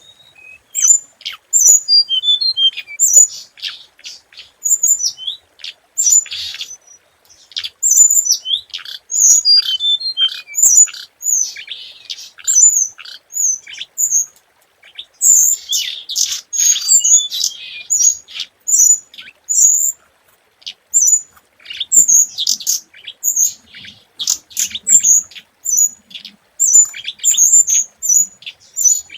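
Hồng hạnh songbird calling: a run of short, high-pitched chirps repeated a few times a second, mixed with quicker twittering notes, as used for a lure call to draw in other birds.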